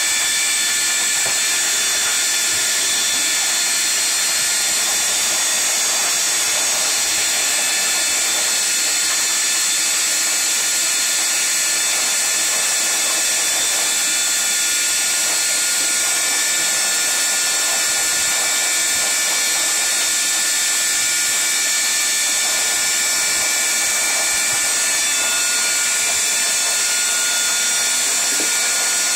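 Shop vacuum running steadily with a high hiss and a steady whine, its hose sucking dirt and debris off a boat's bare hull floor.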